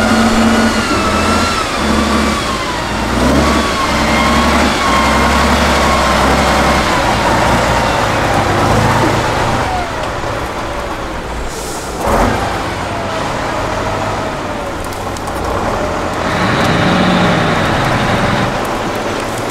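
Diesel engine of a Tatra off-road trial truck working hard under load, its pitch rising and falling with the throttle. There is a short sharp knock about twelve seconds in.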